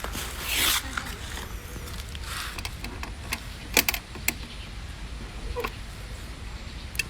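Handling noise: rustling swishes and several sharp clicks, as of hands turning over and setting down a plastic-and-alloy model car, over a steady low rumble.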